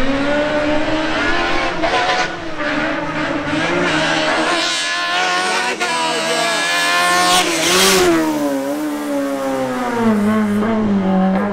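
Racing Fiat 127's four-cylinder engine revving hard through the gears, its pitch climbing and dropping with each shift. It is loudest and highest about eight seconds in as the car goes by, then falls away to a lower, steadier note.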